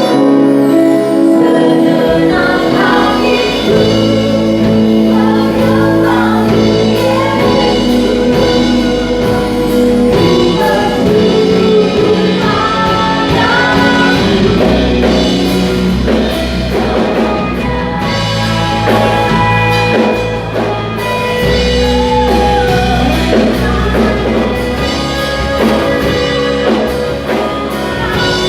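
Live worship music: singers with a band playing a praise song, the bass coming in about two seconds in.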